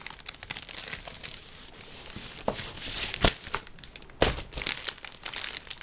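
Contents of a Lego set box being handled: plastic parts bags and paper instruction booklets crinkling and rustling, with a sharp knock a little past three seconds in and a duller thud about a second later.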